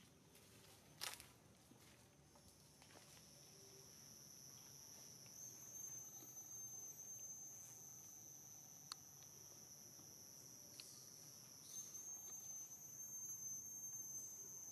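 Faint, steady high-pitched drone of insects, setting in a couple of seconds in and growing stronger; a sharp click about a second in and another near the middle.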